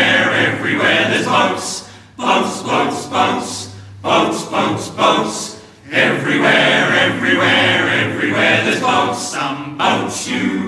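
A choir singing a song in chorus, in phrases broken by short pauses about every two seconds.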